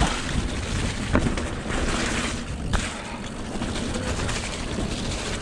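Mountain bike tyres running through wet, slushy mud, with a steady rushing noise and wind on the microphone. A few sharp knocks come from the bike over bumps, about a second in and again near the three-second mark.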